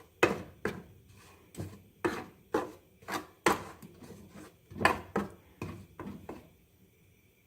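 A cooking utensil knocking and scraping against a pot as pieces of curry roux are worked into hot oil to melt: about a dozen irregular knocks that stop near the end.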